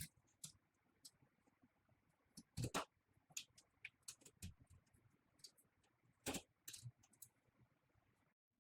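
Scattered light clicks and knocks from handling the sewing machine's pre-install clamp while material is fitted onto it, with two louder knocks about three and six seconds in.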